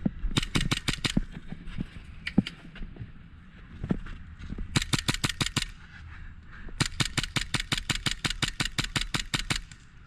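Airsoft guns firing in rapid full-auto bursts: a short burst at the start, another about halfway, and a longer run of about three seconds near the end, with a few single shots between.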